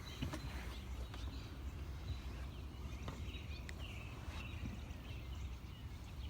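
Outdoor ambience: small birds chirping in short calls over a steady low rumble.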